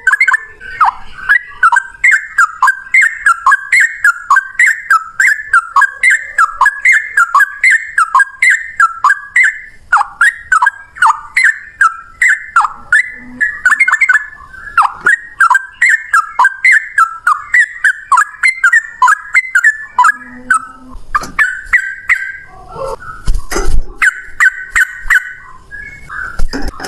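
Yellow-vented bulbul (trucukan) singing a long, rapid run of short, bubbly chirping notes, about two a second, in the excited 'fighting' song used to provoke other males to sing. Near the end the notes turn more jumbled, with a few low thuds.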